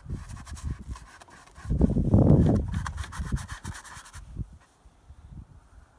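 Winter jacket sleeve rubbing close to the microphone as the arm reaches across, a loud muffled rub about two seconds in, amid faint scratching.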